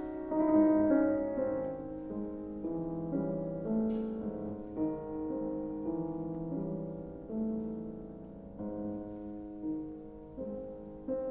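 Solo piano music playing, classical in style.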